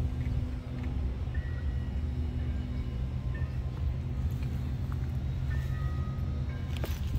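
Steady low outdoor rumble with no speech, with a few short clicks near the end.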